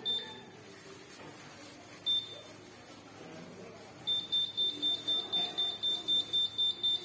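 UPS backup power supply beeping on battery after a power cut. There is a single high beep at the start and another about two seconds in, then from about four seconds in a fast run of beeps, about four a second, the warning that the UPS battery is running down.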